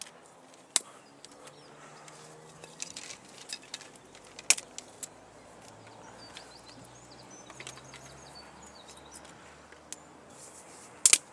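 Dry twigs being snapped and pushed in among bamboo canes: scattered sharp cracks with rustling and rattling of sticks between, the loudest crack about halfway through and a double crack near the end.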